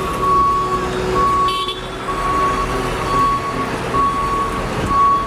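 Reversing alarm of a snow-clearing Sanitation Department vehicle beeping steadily, about one half-second beep each second, over the low running of its diesel engine as it backs up.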